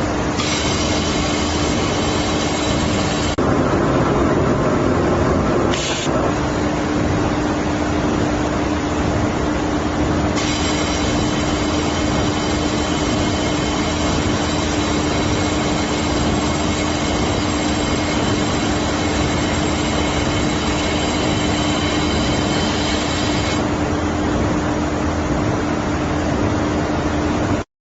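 Fiber laser welding machine running: a steady hiss with a constant low hum, and a high whine of several tones that comes in for the first few seconds and again from about ten seconds until a few seconds before the end. There is a louder noisy stretch a few seconds in, and the sound cuts off abruptly at the very end.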